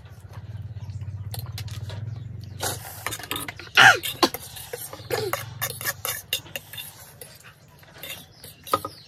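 Metal forks clinking and scraping on plates as spicy noodles are eaten, in quick irregular clicks, with a loud sharp falling sound about four seconds in. A low steady hum runs under the first three seconds.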